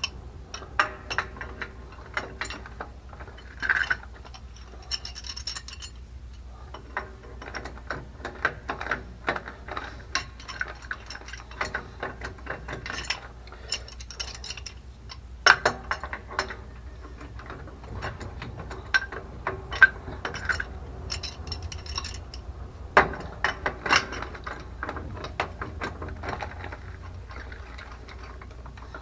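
Runs of quick metallic clicks and knocks from a wrench being worked on a threaded pipe union of a water pump, coming in bursts with a few louder knocks.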